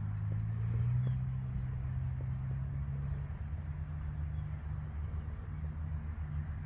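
A low, steady engine-like hum, its pitch rising slightly about a second in and then holding.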